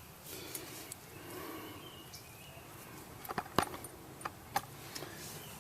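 Light metallic clicks and clinks from the brake caliper and its hardware being handled: a quick cluster a little past the middle, then two more single clicks, over faint background noise.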